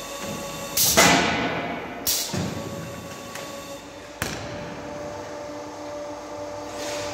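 Automatic silage bagging machine cycling over a steady mechanical hum: a loud hissing burst about a second in and sharp clacks around two seconds, as its actuators push the filled silage bag off the platform, then a sharp knock about four seconds in as the bag lands on the concrete floor.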